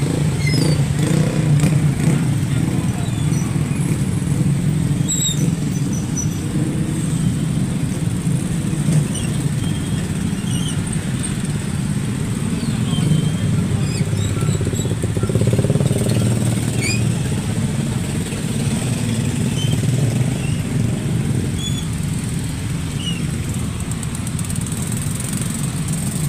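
Motorcycle engine running steadily, a continuous low hum, with a few faint short chirps high above it.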